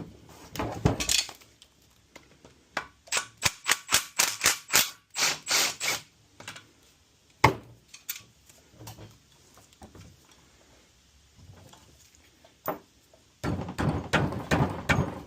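Hand tool clicking in quick runs of sharp strokes, typical of a ratchet wrench backing out the 10 mm bolts on an LSA supercharger. A single sharp clack comes about halfway through, and a denser clatter near the end.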